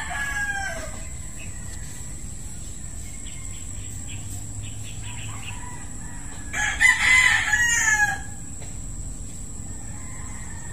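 A rooster crowing twice: the tail of one crow fades out in the first second, and a second, louder crow of about a second and a half comes around seven seconds in, its pitch falling at the end.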